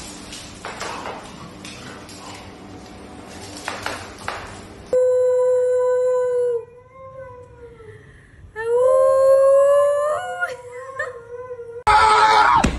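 A large Malamute-type dog howling: two long howls, each held on one pitch, the second rising at its start and breaking into short wavering notes at its end.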